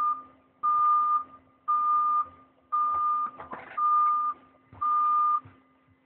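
Driverless transit pod's warning beeper sounding a steady mid-pitched tone about once a second, each beep about half a second long, as the pod sets off. The beeping stops near the end, leaving a faint steady hum.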